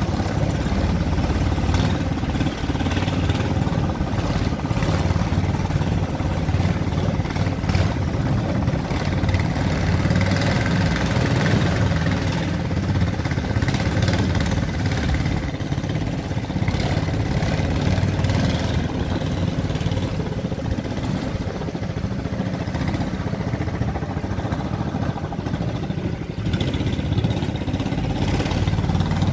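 Motor of a small wooden river boat running steadily under way, a constant low drone with no change in speed.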